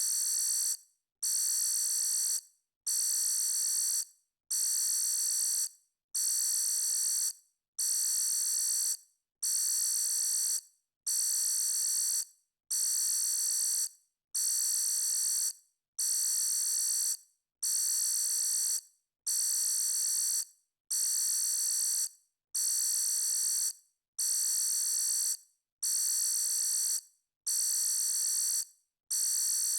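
Electronic alarm beeping: a steady, high-pitched tone sounding in beeps about a second long, repeated evenly about every 1.7 seconds, each beep trailing off briefly at its end.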